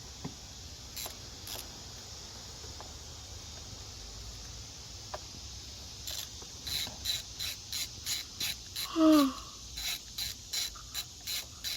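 Faint hiss, then about halfway through a ratchet wrench starts clicking in a quick, even run, roughly three clicks a second, as a new spark plug is threaded into the V8's cylinder head. A brief squeak falling in pitch cuts in about nine seconds in and is the loudest sound.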